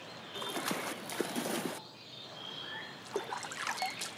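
Otters splashing in water at feeding time: about a second and a half of splashing shortly after the start, then a run of short squeaks near the end. A short steady whistled bird note sounds twice in the background.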